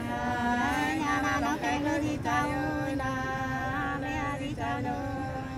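Unaccompanied hát sli folk singing: long held notes that waver and slide slowly, with no instruments.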